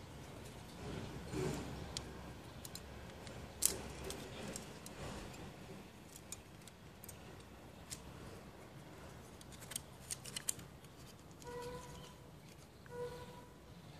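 Small plastic parts of a toy revolver kit being handled and fitted together: scattered light clicks and rustling, with a sharper click a few seconds in and a cluster of clicks near the end. Two short squeaky tones sound near the end.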